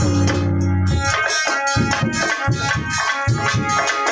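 Instrumental interlude of Alha folk music: a harmonium holds a steady chord, then about a second in a hand drum (dholak) comes in with quick, even strokes while the harmonium keeps sounding.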